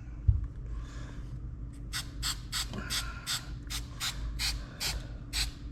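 Aerosol can of contact adhesive spraying in short, quick bursts, about three a second, after a light knock near the start.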